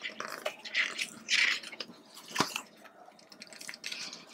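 Paper rustling as the thick pages of a photobook are turned and smoothed flat by hand: several short swishes and one sharp tap about two and a half seconds in.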